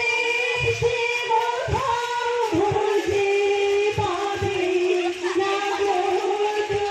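A group of girls singing together in unison, in long held notes, with a few dull low thumps underneath.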